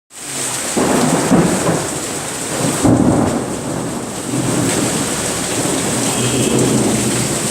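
Heavy rain pouring steadily, with thunder rumbling beneath it, swelling loudest about a second in and again around three seconds in.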